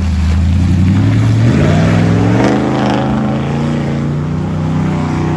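Pickup truck engine running under throttle as the truck pulls away through mud; its pitch climbs about a second and a half in, then holds steady.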